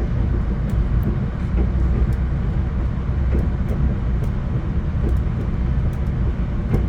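Steady low rumble inside a VIA Rail Canada passenger car as the train runs, with faint light clicks and rattles now and then.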